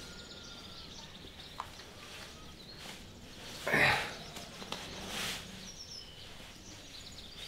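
Quiet background hiss with faint bird chirps. About four seconds in comes one short, louder swish of noise, with a fainter one a second later, while a sock is being pulled on.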